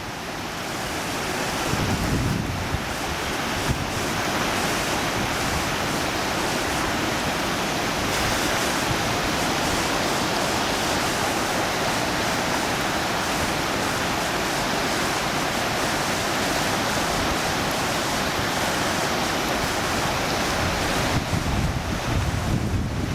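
Flooded River Cree: a steady rush of fast-flowing water. Wind buffets the microphone near the start and again near the end.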